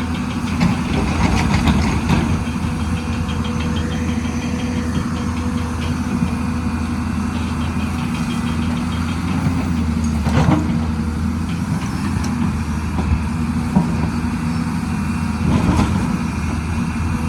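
Excavator engine running steadily at low revs, with a brief sharp knock about ten seconds in and another near the end.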